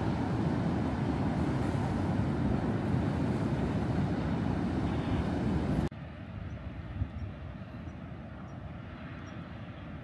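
Steady rushing noise of ocean surf and wind at a rocky shoreline, cutting off abruptly about six seconds in to a fainter, steady outdoor background with a few faint ticks.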